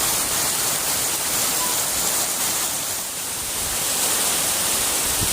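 Heavy tropical rain pouring down, a steady, even hiss.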